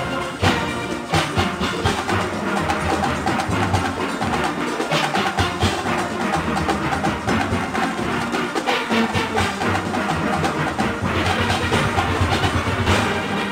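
A steel orchestra playing: massed steelpans carry the melody and chords over a steady, driving percussion rhythm.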